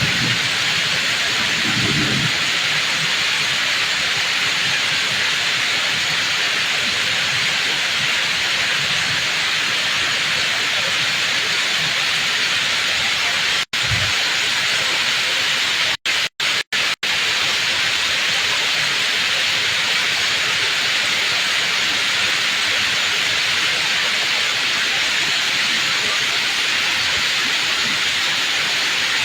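Heavy tropical downpour: a steady, dense hiss of rain falling. A few split-second dropouts in the sound come about halfway through.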